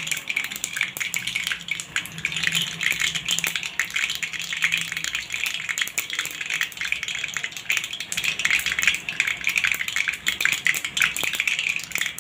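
Mustard seeds spluttering in hot oil in a kadai: a dense, even crackle of many small pops and sizzles, the tempering stage that the cook waits for before adding onion.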